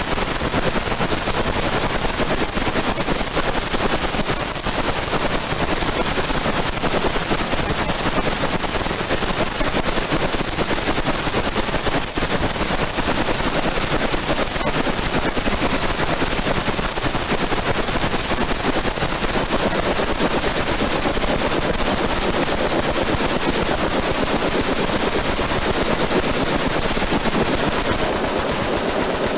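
Many machine guns firing at once along a firing line: a dense, unbroken stream of overlapping shots that never pauses.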